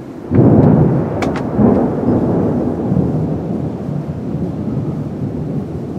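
Thunderclap from a close lightning strike: a sudden loud crack about a third of a second in, a second swell just after, then a rumble that rolls on and slowly fades.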